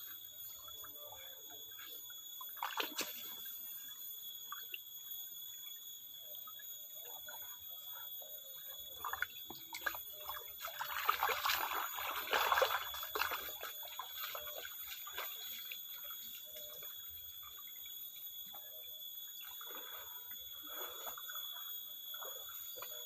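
Shallow rocky stream trickling gently, under a few steady high-pitched tones, with a louder, noisier stretch about halfway through.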